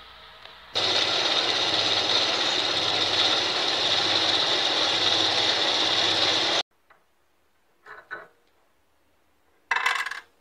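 Homemade metal lathe running and turning a metal pulley: a loud, steady cutting noise over a low motor hum, which stops suddenly about two-thirds of the way through. A short clatter follows near the end.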